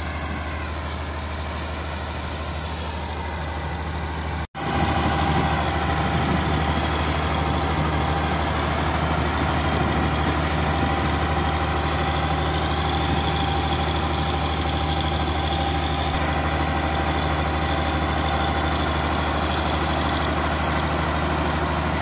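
Diesel engine of a combine harvester running steadily under load while its unloading auger empties wheat grain into a trolley, a low hum with a steady machine whine above it. It drops out for an instant about four and a half seconds in and comes back louder.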